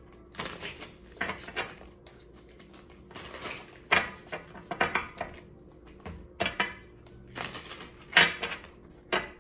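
Tarot cards being shuffled and handled on a table: irregular snaps, flicks and taps of the card stock, roughly one a second.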